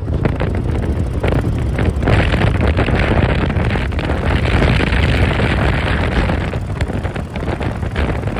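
Wind noise buffeting a camera on a motorcycle riding at highway speed, over the steady low rumble of the motorcycle's engine. The wind rush grows heavier about two seconds in and eases again near the end.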